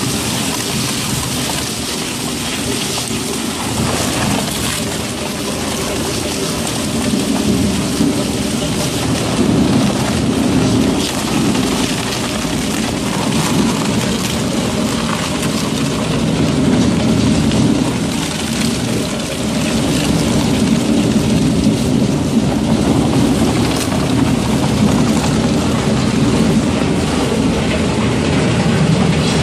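Twin-shaft shredder tearing woven plastic bags: a loud, steady crackling churn of plastic being ripped between the turning cutter shafts, over the low run of the machine, growing a little heavier after about seven seconds.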